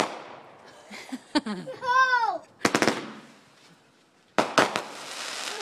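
Aerial fireworks going off: a quick cluster of sharp cracks a little under three seconds in, then louder bangs at about four and a half seconds, followed by a steady hiss.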